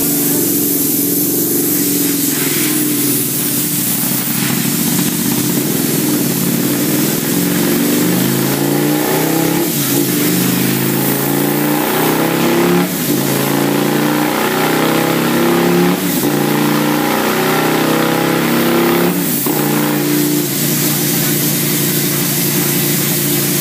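Sport motorcycle engine running hard on a chassis dyno, its rear tyre driving the roller. The engine note climbs in pitch and breaks off with a sudden drop several times, about every three seconds in the second half.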